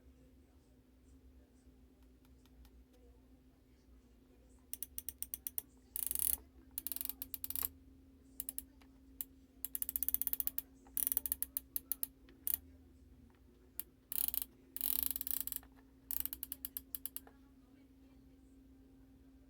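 Screwdriver driving screws back into the iron's housing, clicking in rapid bursts from about five seconds in to near the end, with pauses between the bursts. A faint steady hum runs underneath.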